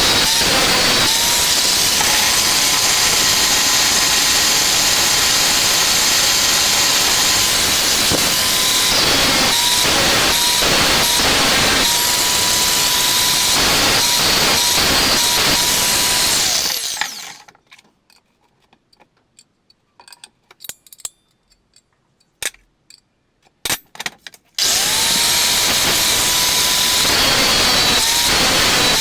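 Handheld electric power tool running with a steady high whine over harsh grinding-like noise, briefly let off and on a few times. About two-thirds of the way through it winds down and stops. A few light clicks and knocks follow in a pause of several seconds, then it spins up again near the end.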